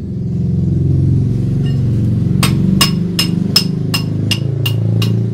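Front axle bolt of a motorcycle wheel being tapped out of the hub: steady metal-on-metal taps, about three a second, starting about two and a half seconds in, each with a short metallic ring. A low engine drone runs underneath.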